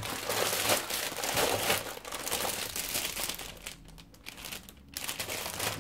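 Clear plastic packaging crinkling as hands handle and unwrap bagged magazines. There is a quieter pause about three and a half seconds in before the crinkling picks up again.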